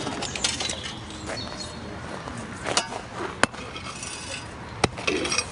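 Pickaxe and digging tools striking into gravel and stony ground, several sharp strikes spaced irregularly about a second or so apart, the clearest three in the second half.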